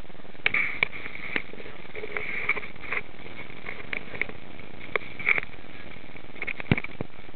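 Water of a waterpark lazy river splashing and lapping in small irregular pops and knocks around a floating rider, over a steady hiss.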